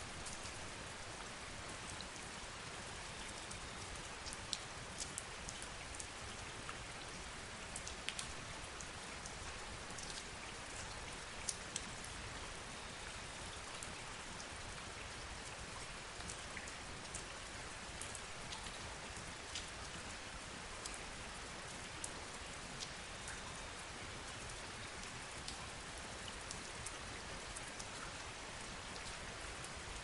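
Medium rain falling steadily onto trees and leaves: an even hiss with scattered sharper drops, a few louder than the rest.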